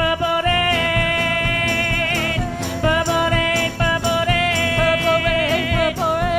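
Live band music: female voices holding long, wordless notes with vibrato over acoustic guitar, with a steady percussion beat of jingling strokes.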